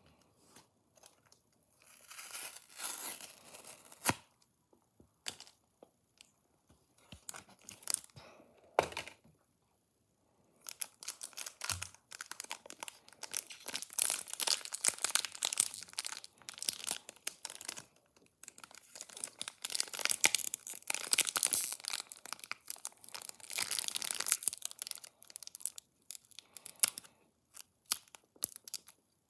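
Pokémon Lost Origin booster pack packaging being torn and crinkled open by hand: a few short bursts of tearing, then about fifteen seconds of dense crinkling and tearing, thinning to scattered crackles near the end.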